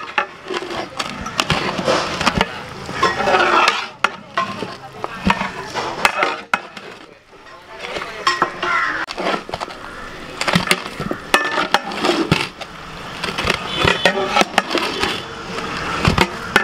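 A metal spoon stirring and scraping raw chicken in chilli powder masala around a large metal pot, with frequent sharp knocks and clinks of the spoon against the pot.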